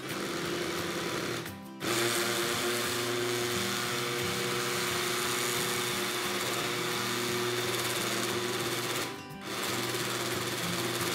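Countertop blender motor running at high speed, blending thick cornmeal cake batter. The sound dips briefly twice, once about one and a half seconds in and once about nine seconds in.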